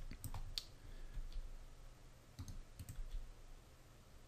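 Faint clicks of a computer keyboard and mouse, scattered in small groups: the G key is pressed twice and clicks confirm each move, near the start and again about two and a half seconds in.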